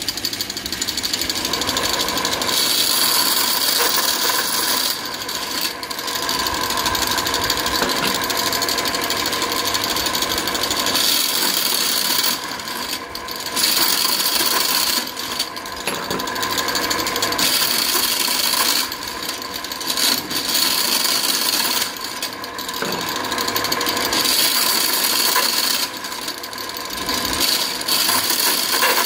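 Nut-bolt assembly machine running: steel nuts rattling and clinking as they are shaken along its vibrating tray and chute, over a steady machine buzz. The clatter drops away briefly several times, between threaded rods being fed in.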